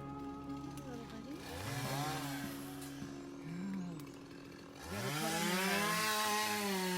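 Chainsaw revved twice: a short rise and fall in engine pitch about two seconds in, then a longer, louder rev from about five seconds in that holds high and drops off near the end.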